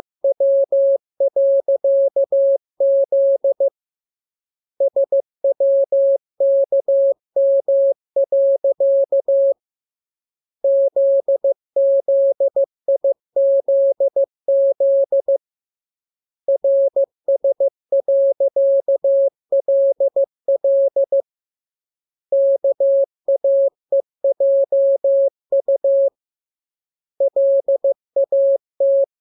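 Morse code (CW) practice tone: a single steady beep keyed on and off in dots and dashes, sent as runs of characters of about five seconds each with a pause of about a second between runs.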